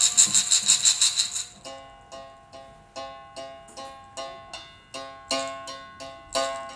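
Music: a shaker rattling fast for about the first second and a half, then a run of plucked or struck pitched notes, about two or three a second, each ringing and fading.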